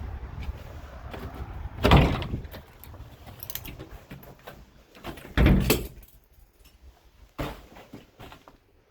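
A low rumble, then a door of an abandoned house being worked open and shut, with two loud knocking, scraping bangs about two seconds in and five and a half seconds in and a smaller knock later. After the second bang the sound drops to quiet room tone.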